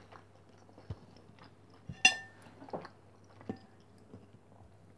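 A metal fork clinks sharply against a ceramic plate about two seconds in, ringing briefly, and taps it again more lightly about a second and a half later, among soft chewing and small mouth clicks.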